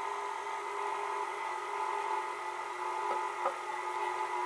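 KitchenAid Artisan stand mixer's motor running steadily with a humming whine, its flat beater mixing cake batter in the glass bowl.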